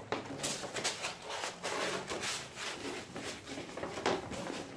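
Large paper posters being handled and rolled up, rustling and crinkling in a run of quick, uneven scrapes.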